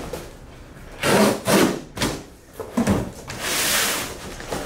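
Box cutter slicing through a corrugated cardboard shipping box, with the box being handled: a few short scraping strokes about a second in, then a longer rasping cut near the end.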